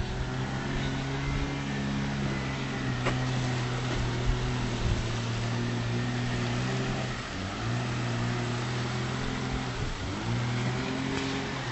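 An engine running steadily. Its pitch dips and climbs back twice, about seven and ten seconds in, over a steady rushing noise.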